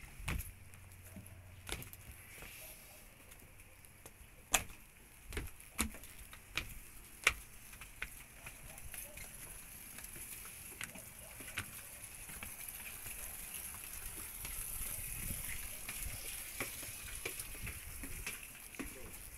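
Scattered knocks and clicks from someone moving about aboard a docked fishing boat, over a steady high hiss.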